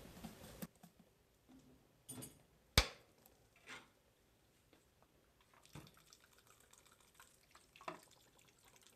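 Quiet kitchen handling noises: a few light knocks and clicks, with one sharp click about three seconds in standing out as the loudest.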